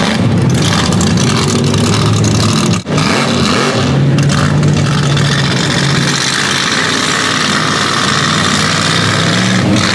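A 2600-horsepower mega truck engine running hard at high revs under load as the truck drives through deep mud. There is a brief break in the sound about three seconds in.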